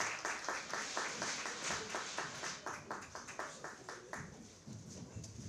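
Audience applause, many hands clapping, dying away about four seconds in.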